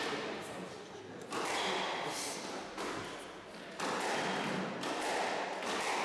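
Squash rally: several sharp thuds of the ball struck by rackets and hitting the court walls, echoing around the enclosed court.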